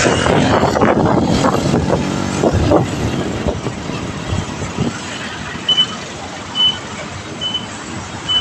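Street traffic heard while riding along a town road, with motor tricycle engines running just ahead. From about halfway on, a short high electronic beep repeats roughly once a second.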